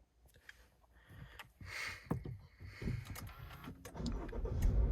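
Subaru flat-four engine starting cold about four seconds in, after a few clicks and knocks, and settling into a low, steady run. The owner hears an engine knock from the moment it starts.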